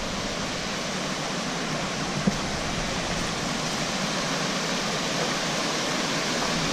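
Small woodland waterfall and stream rushing over rocks: a steady, even rush of water that grows a little louder near the end. One short click just over two seconds in.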